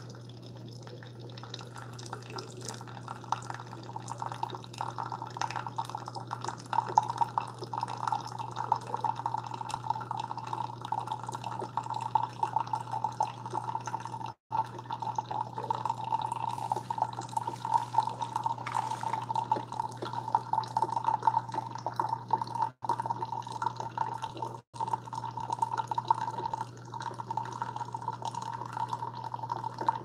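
Keurig K-Supreme Plus SMART single-serve coffee maker brewing: a stream of coffee running and trickling into a mug over a steady low hum, getting louder a few seconds in. The sound cuts out for an instant three times.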